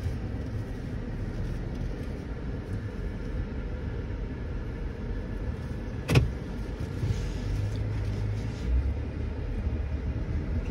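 Car being driven, heard from inside the cabin: a steady low engine and road rumble. One sharp knock about six seconds in.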